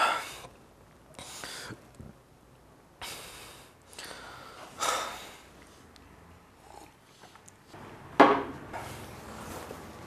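A man breathing heavily: a series of short, noisy breaths and sighing exhales a second or two apart, the loudest about eight seconds in.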